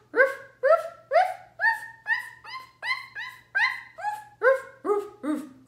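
A woman's voice imitating a dog barking, a quick even string of 'ruff' barks, two to three a second. The barks climb in pitch from deep big-dog barks to high puppy yips and come back down near the end.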